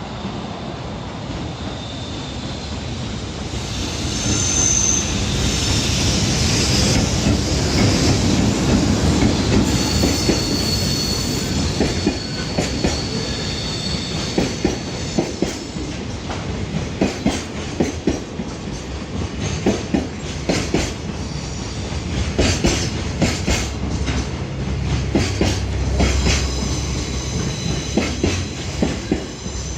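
Freight container train passing at close range: a rumble that builds over the first few seconds, with high-pitched wheel squeal, then a steady clickety-clack of wheels over the rail joints as the wagons roll by.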